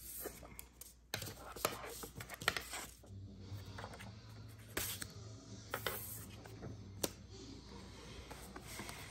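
Light clicks and knocks of small things being handled on a wooden tabletop, thickest in the first few seconds. From about three seconds in, a steady low hum runs underneath.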